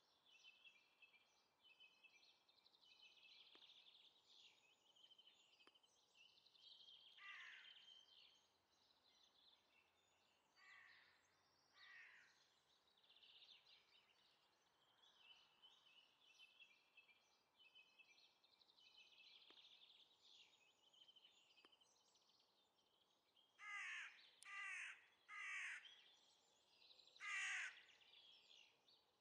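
Wild birds calling outdoors: small birds twittering and chirping throughout, with a few quick calls around 7 to 12 seconds in. Near the end come four loud calls, each about half a second long and roughly a second apart.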